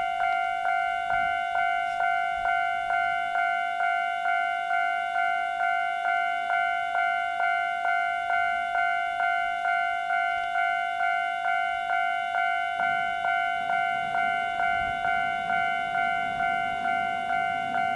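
Railway level crossing warning bell ringing steadily, about two strikes a second. Past the middle, the low rumble of an approaching JR West 115 series electric train grows beneath it.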